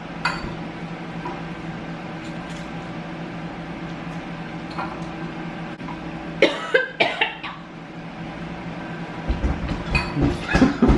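People eating very spicy noodles against a steady low hum, with a short cough-like vocal burst about six and a half seconds in and a run of low thumps and noises near the end.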